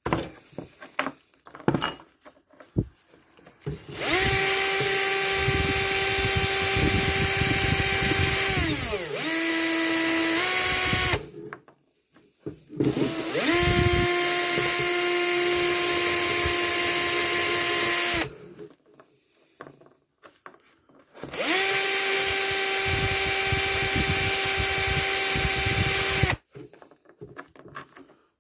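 Power drill fitted with a drill brush, scrubbing the corroded chrome R nut of a Raleigh Chopper. It runs in three bursts of about five to seven seconds each, a steady motor whine over a brushing hiss. In the first burst the whine dips lower and steps back up before the drill stops.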